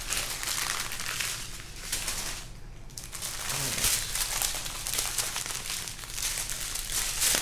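Small plastic zip-top bags of diamond painting drills crinkling as they are handled and sorted, with a short lull about two and a half seconds in.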